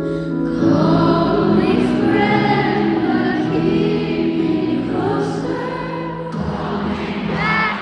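Layered female vocals singing held, choir-like harmonies over a steady low note.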